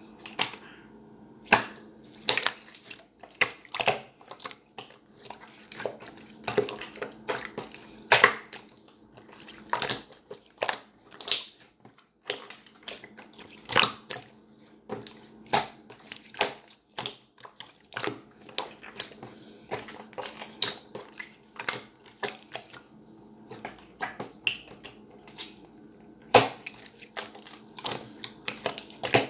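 Irregular sharp clicks and taps, a few a second, over a faint steady hum.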